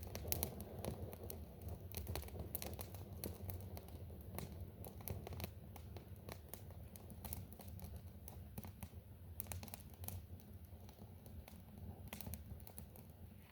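Faint, irregular crackles and snaps of dry thorny twigs at a campfire being lit, over a steady low rumble.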